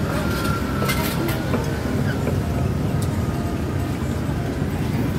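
Steady low rumble of street traffic, with a few light clicks about a second in and again near three seconds.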